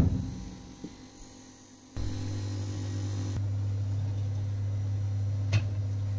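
A sharp knock fades out at the start. From about two seconds in, an LG Charcoal microwave oven runs with a steady low electrical hum, and there is a light click near the end.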